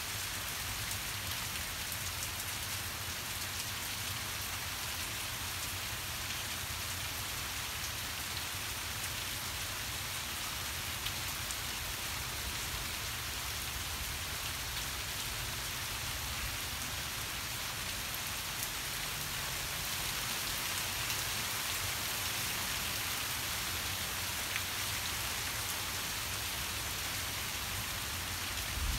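Rain falling steadily in a thunderstorm downpour, an even, continuous patter that grows a little louder about two-thirds of the way through.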